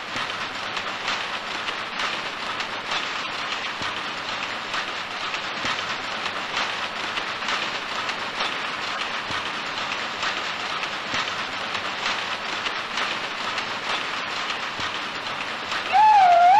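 Jacquard power looms in a weaving shed running with a steady, even clatter of their working parts. Near the end a loud, wavering high-pitched tone cuts in over it.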